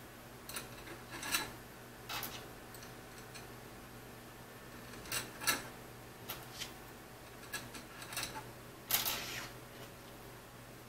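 Small steel T-slot nuts clicking and clinking as they are picked from a pile on a wooden table and slid into the slot of an aluminium extrusion. Scattered sharp clicks, the loudest about nine seconds in.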